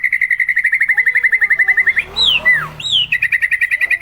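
White-rumped shama (murai batu) singing: a fast trill of repeated notes, about a dozen a second, broken about two seconds in by a few clear whistled notes that fall in pitch, then the trill again near the end.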